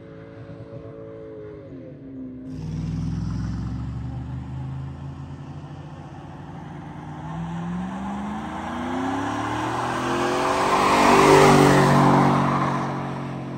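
A car engine holding high revs, then dropping off about two seconds in. A pickup truck's engine then revs up in rising pitch through a burnout, its spinning rear tyres loudest near the end.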